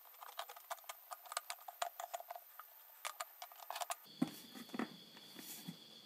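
Quick, irregular light clicks and ticks of small metal handling: pliers working on a tin can and steel flue pipe joined with duct tape. About four seconds in the clicking stops, leaving a few soft knocks over a faint steady high tone.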